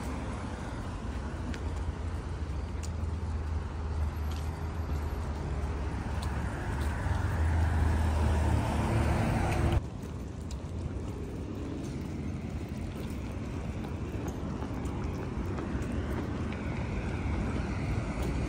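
Street traffic: a steady rumble of passing cars that swells as a vehicle draws near, cuts off suddenly about ten seconds in, then carries on more quietly.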